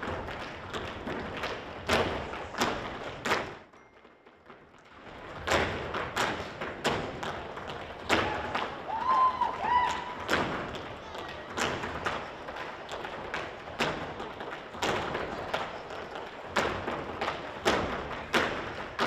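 Percussive dance routine: dancers stomping and striking the stage floor in a run of irregular thuds, with a pause of about a second roughly four seconds in.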